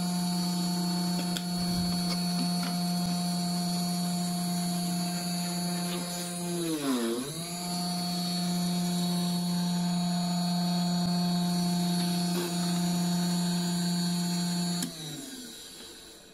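Small motor-spindle PCB drill with a fine bit in a brass collet chuck, running with a steady whine while holes are drilled in a circuit board. About seven seconds in its pitch sags briefly and recovers. Near the end it winds down and stops.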